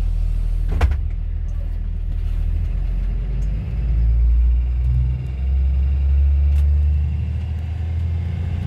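Low, steady rumble of a school bus's engine and running gear heard from inside the cabin, with one sharp click about a second in.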